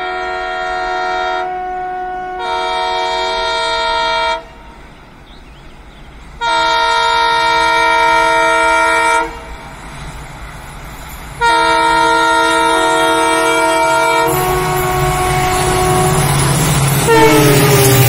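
Indian Railways EMD diesel locomotive approaching at speed and sounding its multi-tone air horn in three long blasts, about two seconds apart, the first changing chord partway through. Near the end the train rushes past with a loud rumble of engine and wheels, and the horn's pitch drops as the locomotive goes by.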